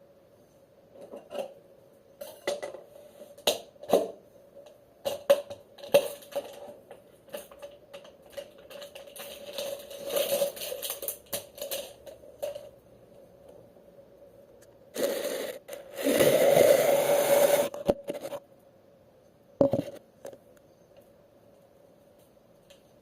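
Kitchen handling sounds: a run of light clicks, knocks and clatter of dishes and utensils, then about three seconds of loud steady rushing noise, and one more knock near the end, over a faint steady hum.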